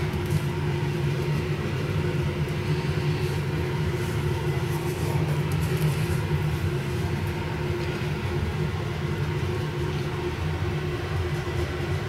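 Steady low rumbling hum with a few faint steady tones in it.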